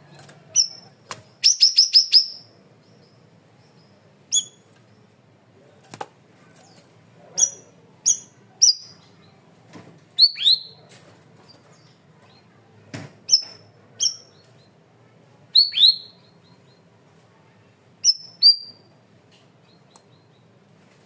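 Cucak rawis (bayeman) songbird calling in short, sharp downward-sweeping whistled notes, sometimes singly or in pairs, with a quick run of about five notes near the start.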